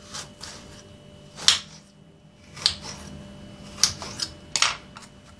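Kitchen knife cutting through a peeled raw quince and knocking on the cutting board: about seven separate chops at uneven intervals, the loudest about a second and a half in.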